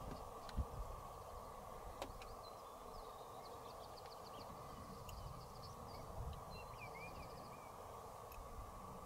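Faint open-air ambience: scattered small-bird chirps and a short fast trill over a steady hiss and a low rumble, with a couple of light knocks in the first two seconds.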